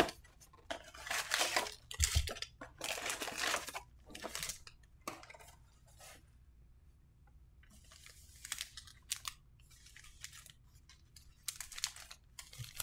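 Cardboard trading-card hobby box being torn open and its foil card packs pulled out and handled: dense tearing and crinkling over the first five seconds, with a low thud about two seconds in, then scattered crinkles of the foil wrappers.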